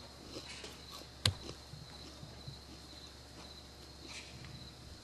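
Muffled hoofbeats of a mare moving on soft arena dirt, with a steady high-pitched tone underneath and one sharp click about a second in.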